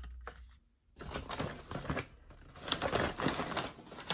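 Paper takeout bag rustling and crinkling in irregular crackles as containers are pulled out of it, starting about a second in.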